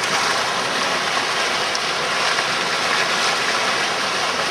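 Floodwater rushing and splashing against a vehicle as it drives through, a loud, steady wash of water noise.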